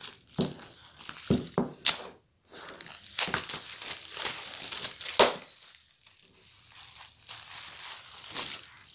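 Clear plastic shrink-wrap being peeled and pulled off a paperback colouring book, crinkling and crackling irregularly with a few sharp snaps, dying down in the last few seconds.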